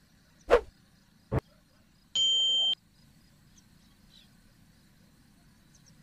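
Subscribe-button animation sound effect: two sharp clicks about a second apart, then a short electronic notification ding lasting about half a second.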